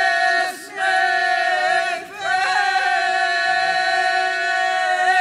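Mixed men's and women's folk singing group singing a traditional Serbian song a cappella in long held notes. The notes are broken by two short pauses for breath in the first half.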